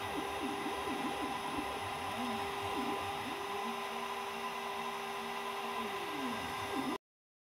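DIY CNC router cutting: the spindle runs with a steady whine while the stepper motors driving the axes whine in tones that sweep up and down with each move, holding one pitch for a couple of seconds mid-way. The sound cuts off suddenly near the end.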